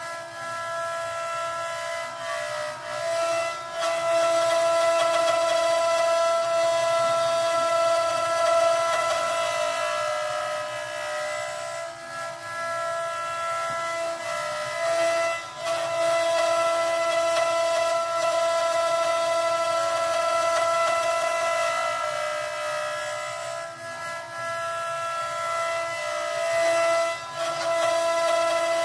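CNC wood router's spindle whining at a steady high pitch while its bit carves a wooden log turned on the 4-axis rotary device, with a cutting hiss underneath. The sound dips briefly every few seconds.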